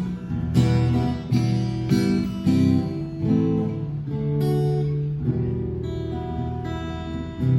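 Acoustic guitar strumming chords: several sharp strums in the first few seconds, then longer ringing chords.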